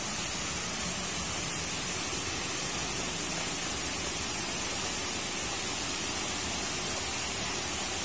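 Steady rushing noise of a tall waterfall plunging into its pool, an even roar with no breaks.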